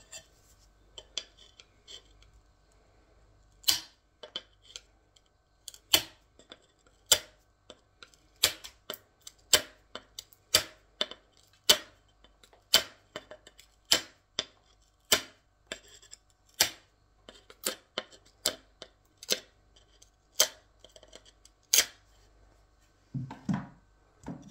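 Tile snips nibbling a thin sliver off the edge of a wall tile: a sharp snap with each bite, about one a second, starting a few seconds in.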